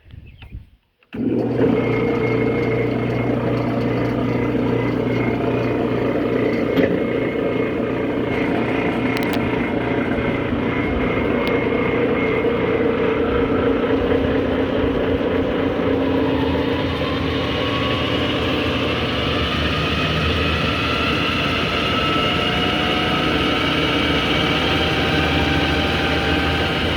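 Clausing 5914 variable-speed metal lathe switched on about a second in and running steadily, a motor and drive hum with a whine that slowly shifts in pitch in the second half.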